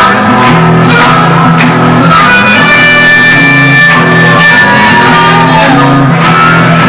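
Live blues-rock band with a harmonica played into a vocal microphone. The harmonica holds long high notes and bends one note down about two-thirds of the way through, over a repeating low riff from the band.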